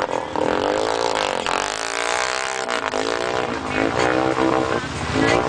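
ATV engine revving up and down again and again as it fights through a deep, flooded mud hole, with mud spraying from the spinning wheels.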